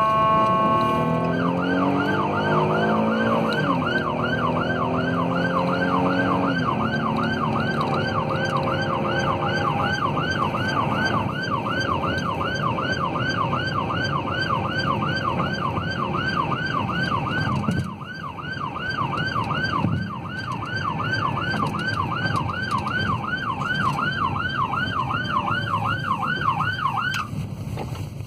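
Police cruiser siren heard from inside the car, in a fast yelp: a rapid rising-and-falling wail about three times a second that stops abruptly near the end. It opens with a brief steady horn tone, and for the first ten seconds the cruiser's engine can be heard climbing in pitch and dropping back as it accelerates through the gears.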